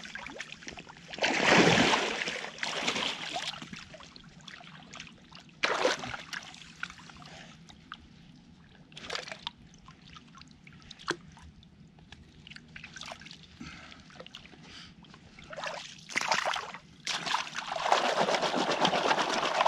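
Shallow creek water splashing and sloshing as a person wades and works their hands in it, in irregular bursts: a louder splash about two seconds in, a few brief smaller ones, and steady sloshing over the last couple of seconds.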